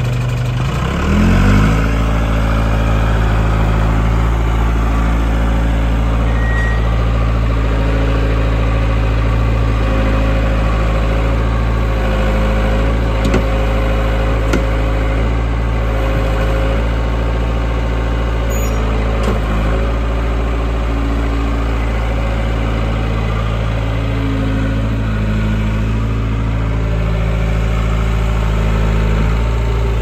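Case 1845C skid steer's diesel engine running; about a second in it revs up from idle and then holds steady at the higher speed while the loader arms raise the bucket.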